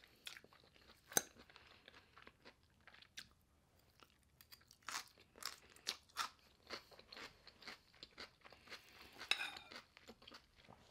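Close-up chewing of a mouthful of raw vegetable poke bowl (cauliflower rice, cucumber, bell pepper), with faint, irregular crisp crunches.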